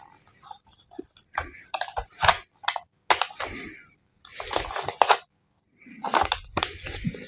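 Paper leaflets and a small instruction booklet handled and flipped close to the microphone: irregular bursts of rustling and crinkling with sharp taps in between.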